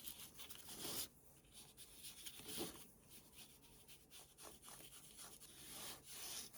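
Faint, irregular scuffing of an ink pad rubbed around the edges of a paper card to distress it.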